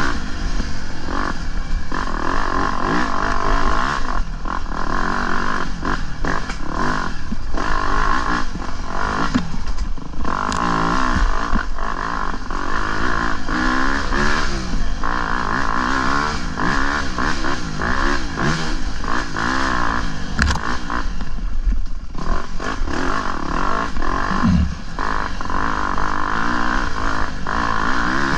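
Off-road dirt bike engine revving up and down over and over as the throttle is worked over rough trail, with short knocks and clatter from rocks under the wheels.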